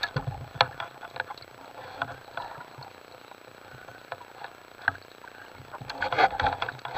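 Irregular clicks and knocks heard underwater as a speared gilthead sea bream is handled on a spear shaft with gloved hands, with a denser run of knocks and scraping about six seconds in as the fish moves on the shaft.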